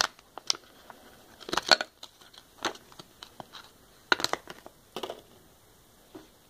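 Thin clear plastic coin sleeve crinkling in several short bursts as fingers work a 1 oz silver round out of it, the loudest a little under two seconds in and again about four seconds in.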